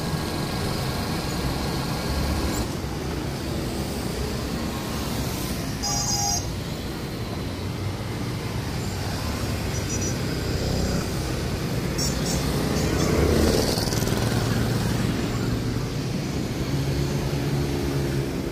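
Street traffic: motorcycles, scooters and cars running and passing steadily, with a few short high tones.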